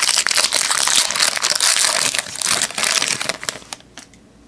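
Foil trading-card pack wrapper crinkling and crumpling in the hands, dense and crackly, dying away about three and a half seconds in.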